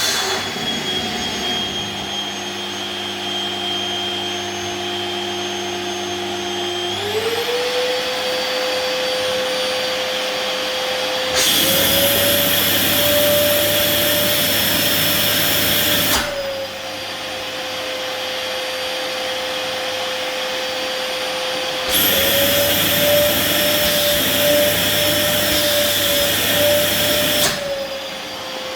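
LG 1600 W canister vacuum cleaner motor running steadily. About seven seconds in its pitch rises to a higher speed. Twice, for about five seconds each, the rush of air gets much louder and the motor pitch climbs a little higher, then drops back.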